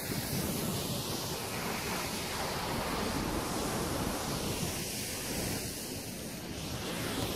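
Steady wind noise buffeting the microphone, a dense, even rush heaviest in the low end.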